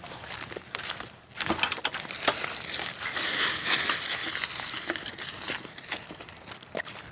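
Dry leaves and twigs crunching and crackling underfoot, a run of irregular crackles and rustles, thickest a few seconds in.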